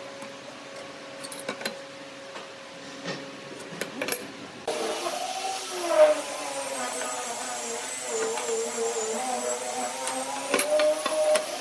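Light clicks and taps of a metal try square and pen being set down and drawn along a pine board. About five seconds in, a louder continuous sound with wavering tones starts abruptly and carries on over the clicks.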